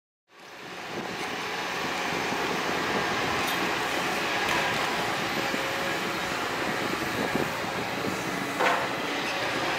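Liebherr R926 compact excavator working, its diesel engine and hydraulics running steadily under load as the tiltrotator bucket shapes an earth slope. The sound fades in at the start, and a sharp knock comes about eight and a half seconds in.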